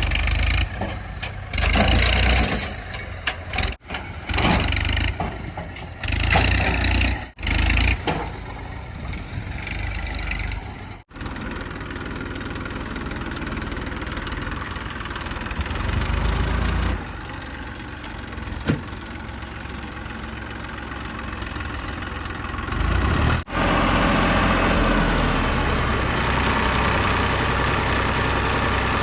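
Heavy diesel engine of earthmoving machinery running under load, revving up and down unevenly for the first part, then running steadier, with several abrupt breaks in the sound.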